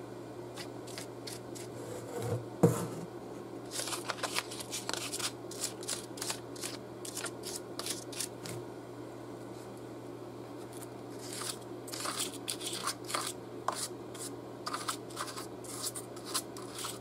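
Flat paintbrush dry-brushing metallic highlights onto a textured painted prop: quick, irregular scratchy strokes of bristles on the surface, with one knock about two and a half seconds in.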